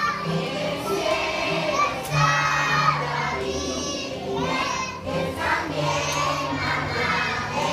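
A group of young children singing a song together, loud and partly shouted.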